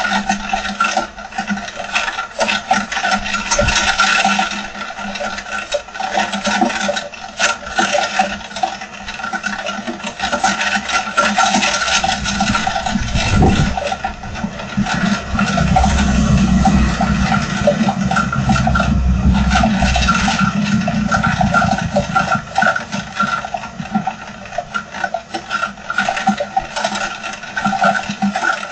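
Heavy rain falling in a continuous dense patter of drops, with a steady hum underneath. About halfway through a gust of wind adds a low rumble for several seconds.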